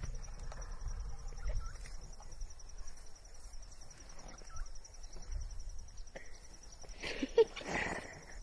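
Outdoor ambience with an insect, cricket-like, chirping in a fast steady pulse throughout, over a low rumble. About seven seconds in comes a short, louder cluster of sound.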